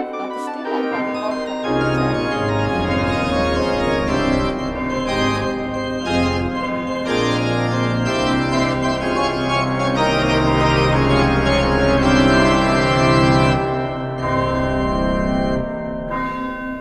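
Organ music: held chords over a bass line that changes note every second or so, swelling a little toward the middle and easing off near the end.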